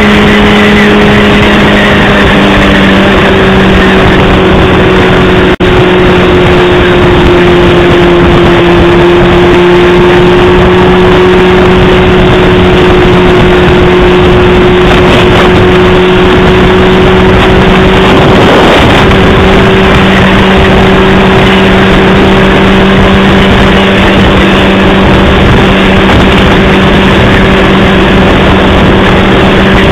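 Honda CBR600RR inline-four engine holding a steady drone at cruising speed, its pitch sagging slightly a few seconds in, under a loud rush of wind and road noise. The sound cuts out for an instant about five and a half seconds in.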